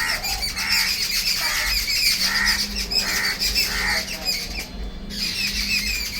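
Birds calling: a harsh, squawky call repeated about twice a second, pausing about four seconds in before resuming, over a steady high-pitched background chatter.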